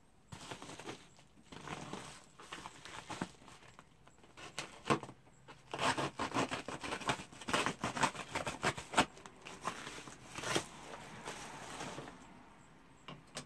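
A mailing satchel being handled, crinkled and torn open by hand: irregular rustling and ripping with several sharp snaps, easing off near the end.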